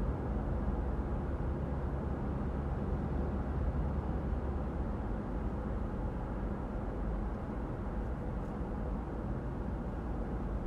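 A car being driven: a steady low rumble of engine and tyre noise, with no change in pace or pitch.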